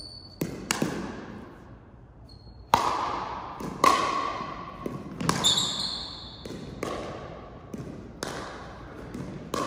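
Ball-game play in a large gymnasium: a sharp ball hit or bounce about every second, each echoing off the hall, with a couple of short high squeaks near the middle.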